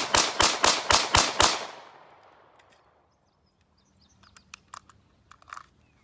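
Rapid string of gunshots, about four a second, that stops about a second and a half in, the last shot's echo dying away over the next second; only faint small clicks follow.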